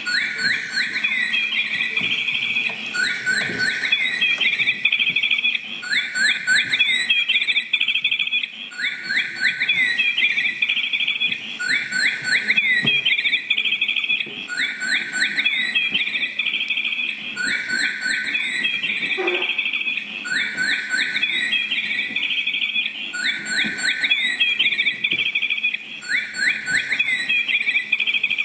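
Electronic birdsong alarm of a 1980s cuckoo alarm clock with a moving singing bird: a run of high chirps, repeated about every three seconds.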